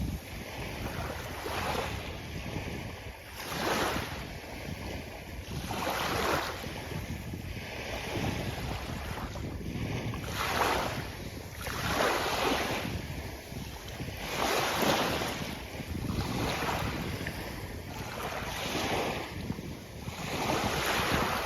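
Sea surf washing onto a beach, a swell of hissing water about every two seconds over a steady low rumble, with wind buffeting the microphone.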